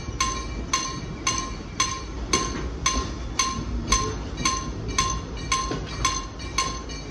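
Level crossing warning bell of an EHZ-13 automatic crossing, ringing in a steady rhythm of about two strikes a second, with a low rumble underneath.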